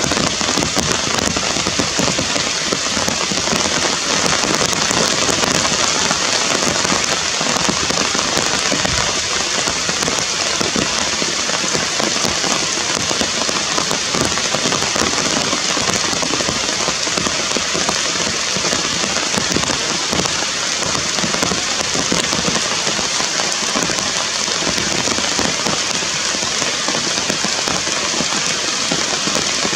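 Steady rain falling on forest foliage: an even hiss, dotted with many small drop hits.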